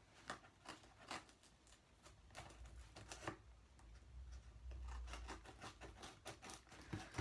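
Faint clicks and scrapes of parcel packaging being cut open by hand: a few separate snips at first, coming quicker near the end.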